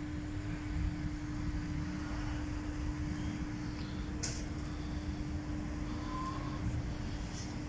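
Outdoor background noise: a steady low rumble with a constant hum underneath, and a few faint brief clicks.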